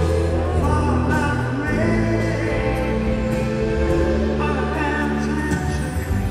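Live rock band playing, with a man singing the lead vocal over guitars and drums.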